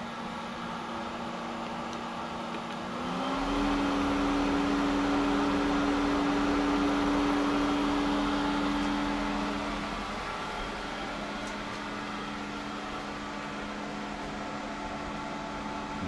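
Hayward Super Pump VS variable-speed pool pump motor running with a steady hum. About three seconds in its pitch rises smoothly and it gets louder as it ramps up from 2000 to 2500 RPM. It runs steadily at the new speed and sounds a little quieter from about ten seconds in.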